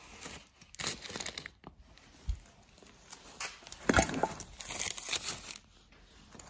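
Brown wrapping paper crinkling and rustling as packed parts are unwrapped and handled, with a sharp knock about four seconds in.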